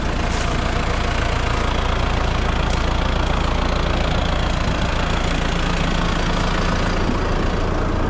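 About 90 hp farm tractor engine running steadily at PTO speed, driving the sawmill's spinning blade and hydraulic pump through the PTO; a faint high whine sits over the engine for most of it.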